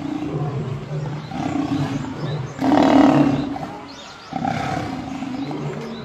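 Lions growling in a fight, lionesses on top of a pinned male, in several bouts of low growling; the loudest and harshest snarl comes about halfway through.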